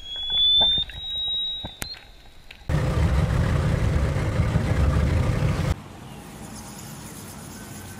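Underwater sound of a toothed whale: a short rising whistle with scattered clicks. About a third of the way in it gives way to a steady low rumble of noise, which drops to a quieter hiss a few seconds later.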